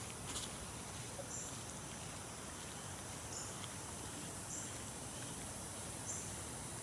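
Quiet, steady outdoor background noise, with short high chirps repeating about every one and a half seconds.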